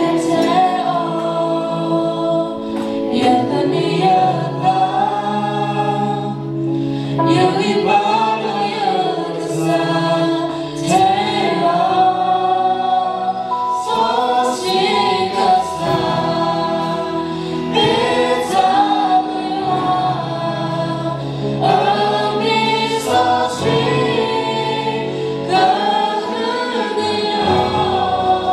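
A small mixed group of young men and women singing a gospel worship song together into microphones, with live band accompaniment of drums and bass guitar.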